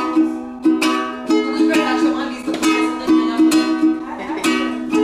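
Ukulele strummed in chords, each stroke ringing on into the next.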